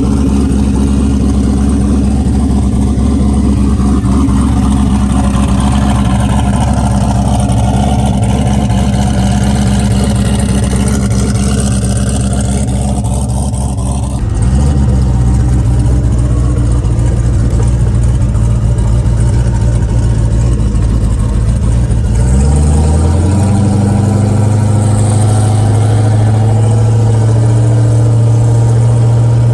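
Car engine running steadily on the road, a low drone that shifts slightly about halfway through and steps up in pitch about three-quarters of the way through as the revs rise.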